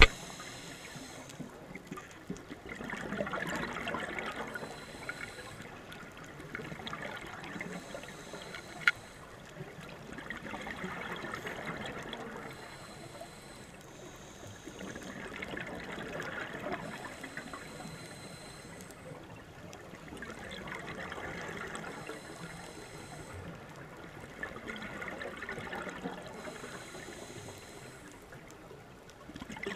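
Water washing and trickling, swelling and fading about every five to six seconds, with one sharp click about nine seconds in.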